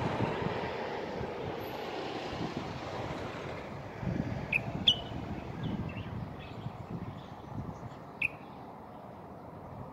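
A few short, sharp chirps from a common bulbul, about halfway through and again near the end. A low rumble from a passing vehicle fades away over the first few seconds.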